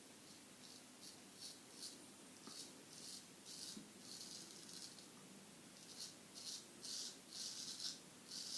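Straight razor (Solingen H. Geffgen Hohscheid 6/8) scraping through stubble in short, repeated strokes, each a faint high rasp, coming faster in the second half. The lather gives it almost no slip or cushioning film.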